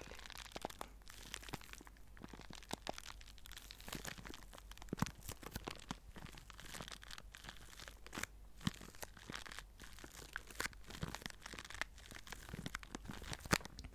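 Small zip-lock plastic bag stuffed with white scraps being squeezed and handled by fingertips, giving irregular crinkling and crackling.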